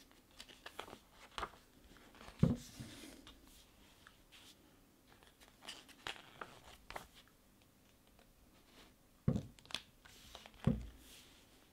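Pages of a stapled paper booklet turned by hand: soft paper rustles and light clicks, with three dull thumps, one about two and a half seconds in and two near the end, as the pages are pressed flat.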